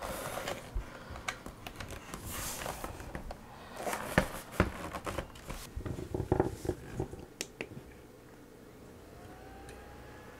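Handling noises from a Toshiba laptop: clicks, knocks and rustles as the charger plug goes in and the lid is opened, the loudest knocks about four seconds in. Near the end a faint whine rises and levels off as the laptop starts up.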